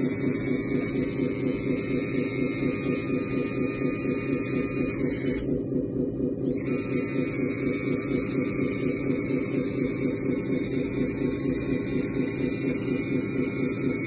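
1/14 RC MAN TGS 8x8 dump truck's sound system playing a steady, pulsing diesel engine idle, with a high whine from the hydraulic pump as the dump bed lowers. The whine breaks off for about a second and a half, about five seconds in, then resumes.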